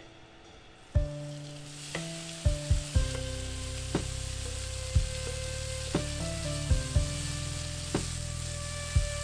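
Raw ground chicken sizzling and frying in hot oil in a cast-iron skillet over high heat. The sizzle sets in about a second in as the meat hits the pan, then runs steadily as it is stirred with a wooden spatula.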